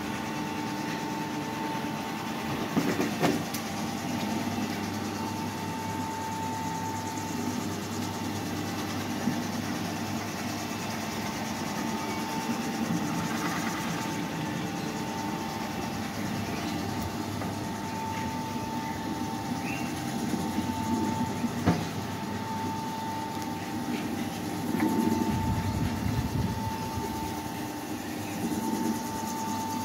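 Electric machine running steadily, with a mechanical rattle and a thin whine that comes and goes. A few louder knocks about three seconds in, and a louder stretch near the end.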